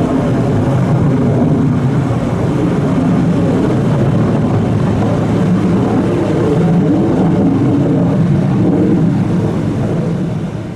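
F-15 Eagle's twin turbofan jet engines in afterburner during a steep departure climb: a loud, steady rumble, weighted to the low end, that fades near the end.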